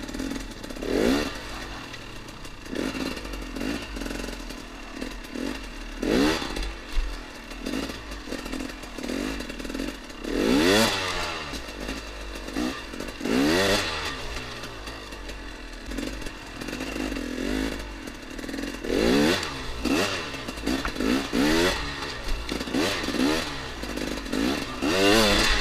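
2014 KTM XC-W 250 two-stroke dirt bike engine being ridden on a trail, revving up in short throttle bursts every few seconds, each rising in pitch before dropping back.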